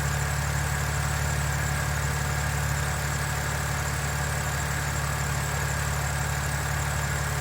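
BMW N52 straight-six engine idling steadily, with a steady faint whine above the hum and no valve lifter ticking: the owner reports the lifter tick has not returned.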